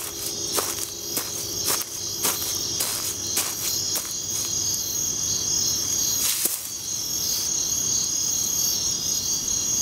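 Crickets chirping steadily as a night ambience, with scattered sharp clicks.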